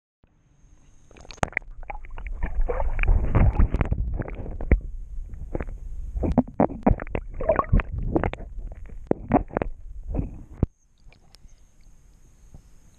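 Muffled splashing, sloshing and knocks heard through a camera held underwater beside a hooked bass. The sound cuts to a much quieter, clearer background about ten and a half seconds in, as the camera leaves the water.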